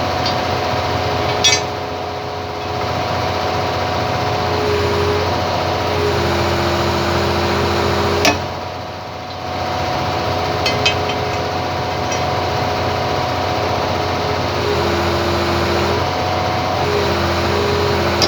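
Hitachi excavator running: a steady engine drone with a steady whine on top that steps up and down in pitch every few seconds. Two sharp metal clinks, about one and a half seconds in and about eight seconds in.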